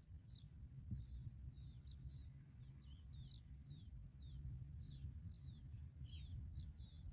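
Small bird giving a rapid series of short, high, downward-slurred chirps, about three a second, over a faint low rumble.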